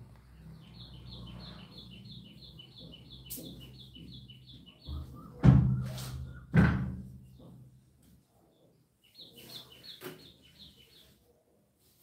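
A small bird chirping in fast, even runs of short calls, about six a second, twice. Between the two runs, two loud knocks about a second apart.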